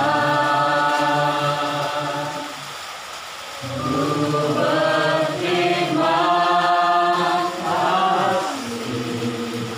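Voices singing a slow Indonesian worship song in long held notes, with a softer gap of about a second near the middle.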